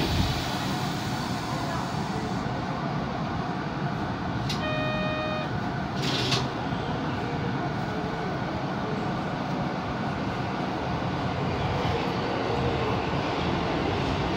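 Steady running hum of a Tokyo Metro 1000-series subway train standing at an underground platform. About halfway through comes a single electronic tone of about a second, followed shortly by a brief hiss.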